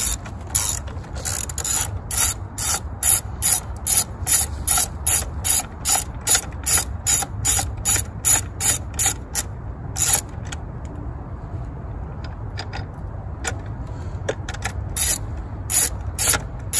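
10 mm ratchet wrench clicking as it is swung back and forth, about two to three strokes a second, backing off the nut of a car battery's J-hook hold-down bolt. The clicking stops for a few seconds, with only a few faint clicks, then starts again near the end.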